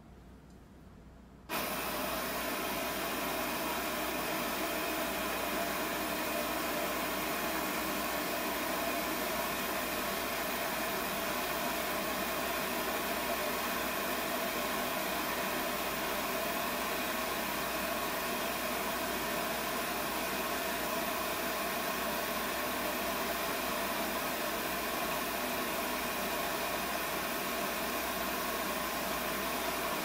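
Propane lampworking burner running with a steady rushing hiss of flame and gas. The sound jumps suddenly louder about a second and a half in, then holds even.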